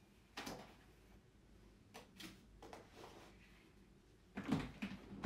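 Plastic lid being fitted and pressed down onto a clear plastic storage box, with a cluster of louder knocks near the end. Before that, a few faint knocks and rustles as items are handled in the box.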